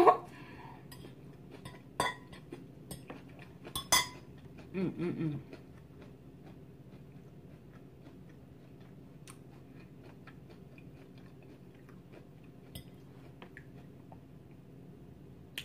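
A fork clinking on a plate in sharp clicks at the start and about two and four seconds in, with chewing of salad. After about six seconds only faint small ticks remain.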